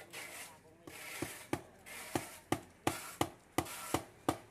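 A hammer striking a wooden post in a steady rhythm, about three blows a second, with a rasping scrape between the blows.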